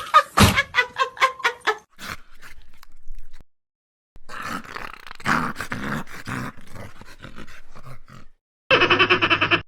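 Dog vocal sounds in several short bursts, broken by brief gaps of silence: a quick run of repeated calls at the start, a longer rough stretch in the middle, and a short final burst.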